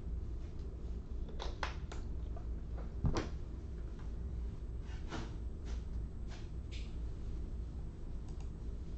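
A few scattered light clicks and taps, with one louder knock about three seconds in, over a steady low hum.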